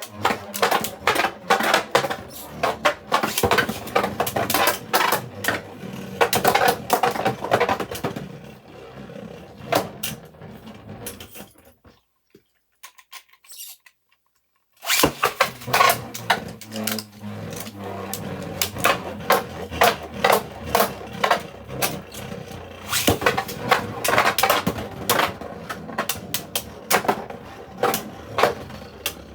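3D-printed Beyblade spinning tops battling in a stadium: rapid clattering clicks and knocks as they collide and scrape. The clatter thins out a little before halfway, stops for about three seconds, then starts again abruptly and runs on dense.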